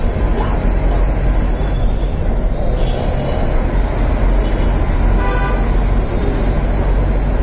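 Steady low rumble of a city bus engine and road noise, heard from inside the moving bus, with a short vehicle horn honk about five seconds in.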